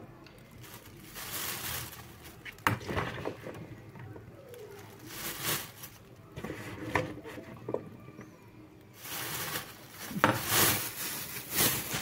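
Clear plastic bag crinkling and rustling as boiled, chopped green cowpea pods are dropped into it from a perforated metal skimmer. A few sharp clicks of the skimmer against the bowl come through, and the rustling is loudest near the end.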